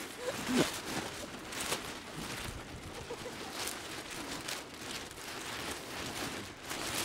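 Strong, gusty wind buffeting the microphone and a tarp shelter, the tarp fabric flapping with sharp flaps every second or so, the loudest about half a second in.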